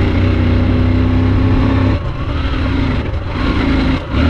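Honda XR150's single-cylinder engine running under load up a climb, its note dipping briefly three times in the second half as the throttle is eased.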